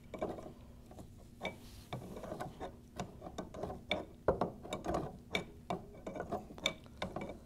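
Adjustable wrench working a steel fitting on a paint sprayer's displacement pump: a run of irregular light metal clicks and taps, a few each second, some ringing briefly, as the fitting is snugged in place without being tightened down.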